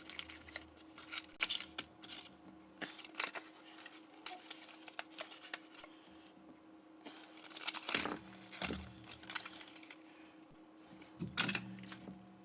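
A small cardboard box and its packaging being handled: scattered rustling, crinkling and light clicks, with louder rustles about eight seconds in and again near the end.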